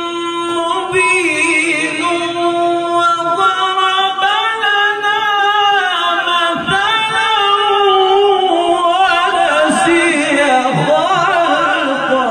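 A man reciting the Quran in the melodic tilawat style, amplified through a microphone. He holds one long steady note for the first few seconds, then moves into wavering, ornamented runs.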